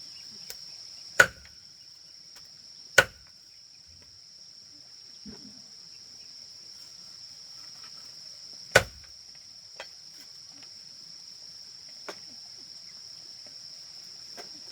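Three loud, sharp chops, about a second in, about three seconds in and near nine seconds, with a few lighter knocks between: a cleaver chopping the grilled chicken. A steady high drone of crickets or cicadas runs underneath.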